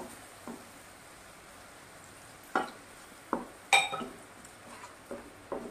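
Wooden spatula stirring and scraping onion masala in a nonstick frying pan, with a soft sizzle of frying underneath. Several short knocks of the spatula against the pan come through, the sharpest about two-thirds of the way in with a brief ring.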